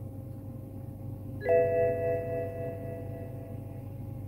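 A single electronic chime about a second and a half in, several tones sounding together and fading out over about two seconds, over the steady low hum of a car cabin.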